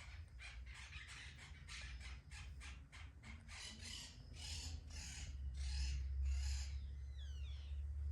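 A cat licking its fur in a run of rasping tongue strokes, about two to three a second, getting stronger in the second half. A bird chirps briefly near the end.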